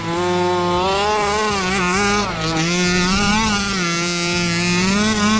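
HPI Baja 5B's 29cc two-stroke petrol engine running loud at high revs, its pitch rising and falling as the throttle is worked on and off.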